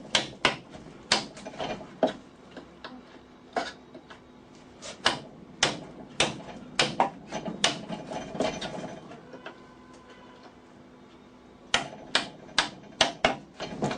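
Chisel being struck in irregular sharp blows while chopping out a mortise in very hard wood, several strikes in quick succession, a pause of about two seconds near the end, then another run of blows.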